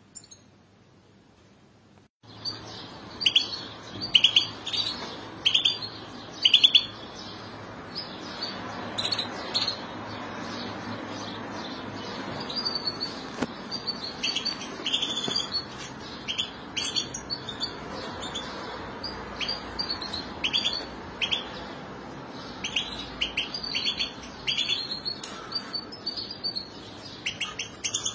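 European goldfinches calling: short, bright chirps in quick clusters, starting about two seconds in and carrying on throughout, over a steady background hiss.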